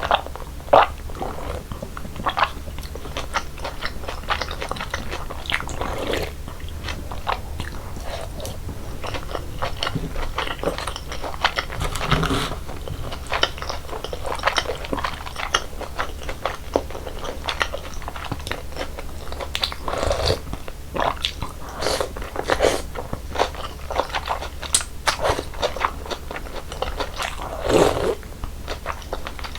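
Close-miked chewing and crunching while eating mul-naengmyeon, Korean cold noodles in a slushy iced broth. Many sharp crunches come one after another at an uneven pace.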